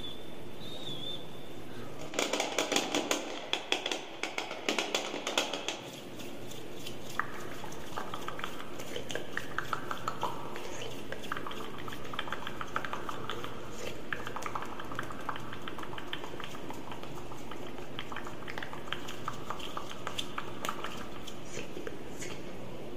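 Close-miked ASMR mouth sounds into a condenser microphone: dense wet clicks and smacks. They come in a loud, spiky burst from about two to six seconds in, then carry on as a steady stream of softer clicking.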